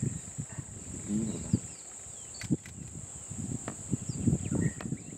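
Steady high-pitched insect drone in dry scrub, with a few faint bird chirps. Irregular low rumbles and a couple of sharp knocks close to the microphone are the loudest sounds.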